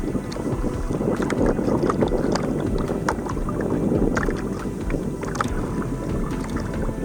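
Water lapping and splashing against the hull of a small plastic boat moving on a lake, a dense irregular wash with many small crackling splashes, with some wind on the microphone.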